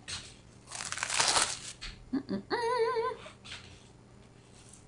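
Plastic cling wrap crinkling as it is peeled off a mixing bowl of risen bread dough, then a woman's short, wavering "mmm" of delight.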